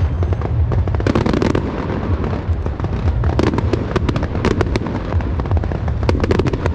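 Electrically fired aerial fireworks display: a dense, unbroken run of shell bursts and crackling, many sharp bangs close together over a constant low rumble.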